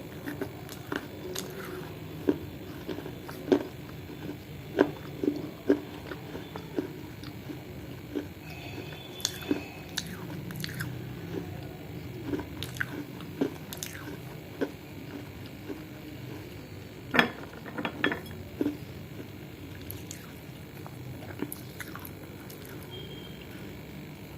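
A person biting and chewing hard edible clay close to the microphone: sharp crunches and crackles at irregular intervals, with a few of the loudest crunches about two thirds of the way through.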